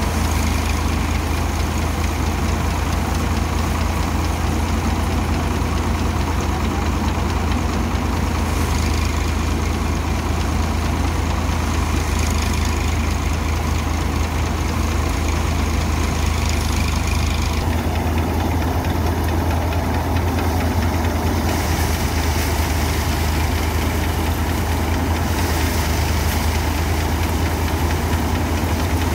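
Tractor-driven paddy threshing machine running steadily, the engine's low hum under the machine's rattle. The tone changes about two-thirds of the way through, with less high-pitched noise and a deeper hum.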